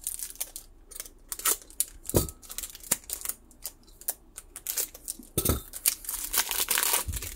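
Hands opening a foil Pokémon booster pack: a run of sharp clicks and crinkles from the wrapper, with a longer stretch of crinkling and tearing about five and a half seconds in, and a few dull thumps of handling.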